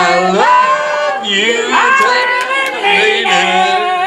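Karaoke singing: voices holding long notes that scoop up at the start and break off every second or so.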